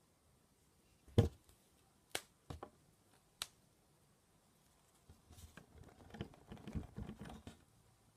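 A few separate sharp clicks or taps, four in the first three and a half seconds, then a quick flurry of small taps and rustles lasting about two and a half seconds, like close handling noise.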